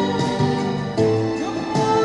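Ballad music: sustained accompaniment notes, with a chord change about a second in.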